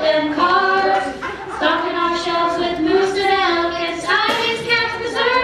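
A wordless, buzzy, voice-like tune with long held notes, some gliding up or down, played on small handheld mouth instruments.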